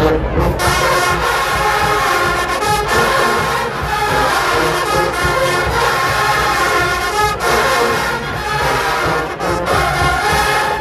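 A marching band's brass section playing loudly, with sustained chords and short accented breaks.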